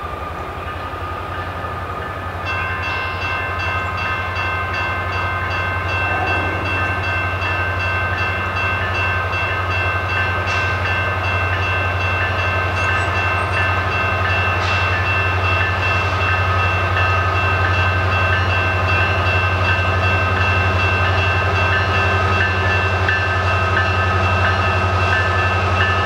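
Approaching freight train led by two EMD SD70M-2 diesel locomotives: a steady low engine drone slowly grows louder. From about two seconds in, several steady high tones hold over it to the end.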